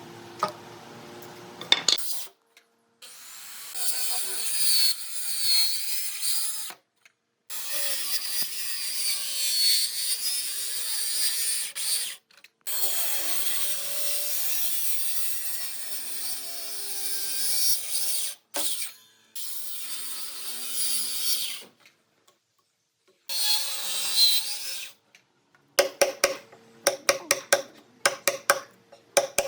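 Power tools working wood in a string of short clips, each a noisy run with a motor hum whose pitch wavers under load. Near the end comes a quick run of sharp taps.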